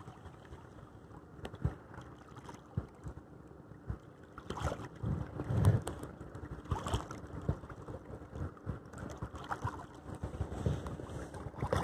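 Bay water lapping and splashing irregularly against the hull of a small sailing dinghy under way, with wind buffeting the microphone.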